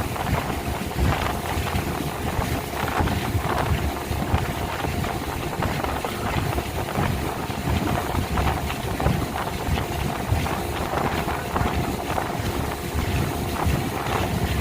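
Speedboat engine running steadily at speed, with a constant whine, rushing water and wind buffeting the microphone in irregular gusts.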